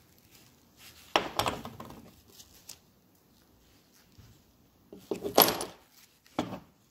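Metal parts of a motorcycle engine's centrifugal oil filter clinking and knocking as they are handled and set down on a workbench. There is a clatter about a second in, a couple of light taps, and the loudest knocks about five seconds in.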